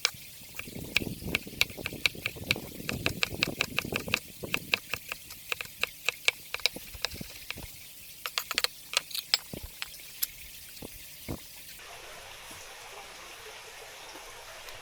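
Clam shells clacking against each other as they are rinsed in water: sharp clicks, a few per second, with a splashy patch early on. The clicking stops about eleven and a half seconds in, leaving a faint steady hiss.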